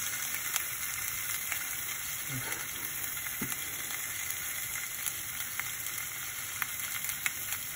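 A thin slice of seitan sizzling in hot oil in a stainless steel frying pan: a steady hiss with scattered small pops and crackles.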